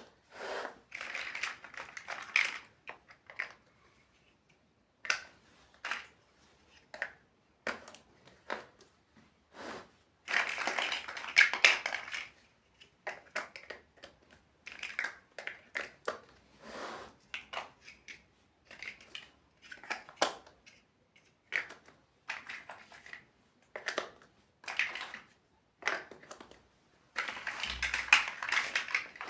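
Plastic building bricks being handled and pressed together: irregular clicks and taps, with longer stretches of dense clattering and rustling about ten seconds in and again near the end.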